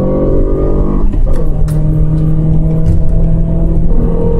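Nissan Sentra's 2.5-litre four-cylinder engine pulling under acceleration, its note climbing, dipping about a second in, then climbing again, over road and wind noise. It runs smoothly with no misfire on a new ignition coil.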